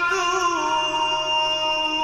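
A man chanting a Quran recitation (tilavet), holding one long melismatic note. The note wavers briefly about half a second in and then stays steady.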